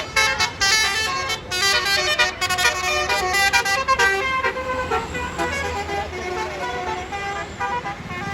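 A bus's multi-tone telolet horn playing a melody, several horn tones sounding together. It plays quick short notes for the first few seconds, then longer held notes, over the low rumble of the bus.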